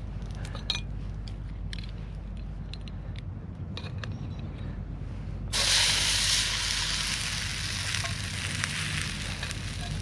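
Foraged greens sizzling loudly as they are tipped into a hot frying pan. The sizzle starts suddenly about five and a half seconds in, then eases off slowly.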